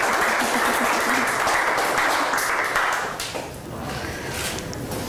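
An audience applauding. The clapping dies away about three seconds in.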